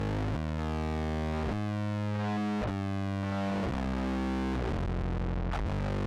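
Electric bass played through an MXR Poly Blue Octave pedal: a slow line of held notes, a new one about every second.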